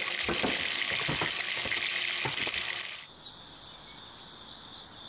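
Strips of bacon sizzling and popping in a frying pan. About three seconds in it gives way to a steady, high-pitched chorus of insects chirping outdoors.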